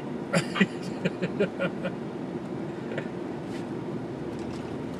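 Steady low hum inside a car cabin, with a few short bursts of a voice in the first two seconds.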